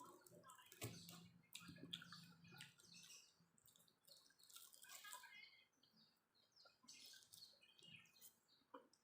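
Close-miked chewing of french fries: irregular crisp crackles and wet mouth clicks coming in quick clusters.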